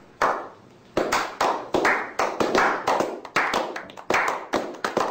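Hand clapping: two slow claps, then a steady run of about three claps a second.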